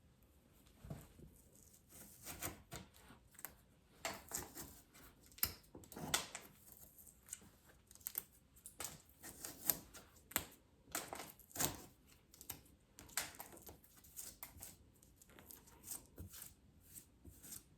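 Faint, irregular clicks and short scrapes of a hand tool picking and scraping at a cracked aerated-concrete wall to open up the crack, the material crumbling away.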